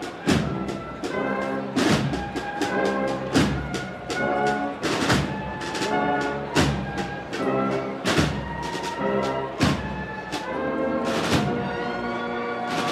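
Cornet and drum band (cornetas y tambores) playing a procession march: bugles in unison over snare drums, with a heavy bass drum and cymbal stroke about every second and a half.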